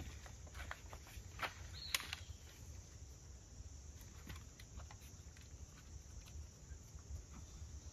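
Light clicks, taps and cloth rustling as the fabric seat of a wooden-framed folding camp chair is fitted onto its poles, with two sharper clicks about one and a half and two seconds in.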